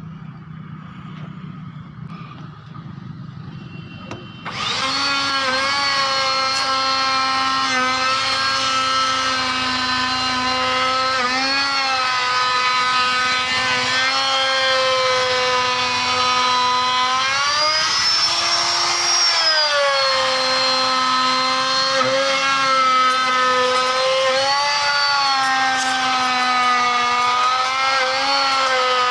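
Electric wood router spinning at high speed, its bit cutting a molding profile into the edge of a wooden frame. The steady whine starts abruptly about four seconds in, and its pitch sags and recovers several times as the bit loads and runs freer.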